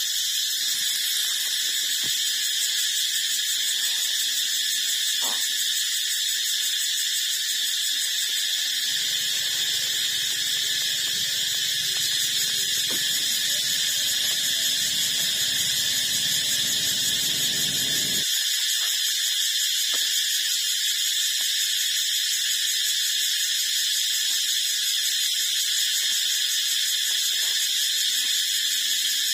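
A steady, high-pitched hissing whine that does not change. A faint low rumble joins it for a stretch in the middle.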